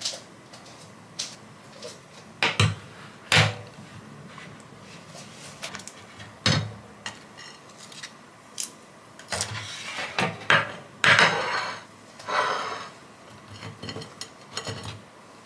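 Kitchen handling sounds: a string of sharp knocks and clatters as a metal wire oven rack and a glass plate are set down on a countertop and baked tarts are moved onto the plate. Busier clattering with some longer scraping sounds after about nine seconds.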